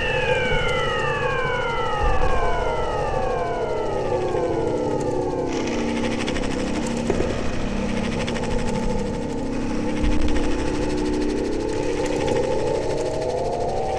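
Electronic drone-noise music from a modular synthesizer and iPad. Several siren-like tones glide slowly down in pitch one after another over a noisy drone and low rumble. A hiss layer comes in about five seconds in, and the tones start rising again near the end.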